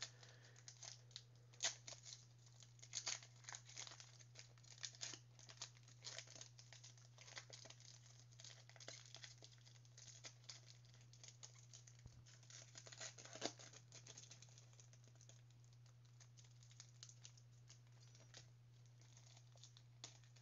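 Panini Mosaic trading-card packs being torn open and handled: faint scattered crinkling and tearing of wrappers, busiest in the first few seconds and again about two-thirds of the way through, over a steady low electrical hum.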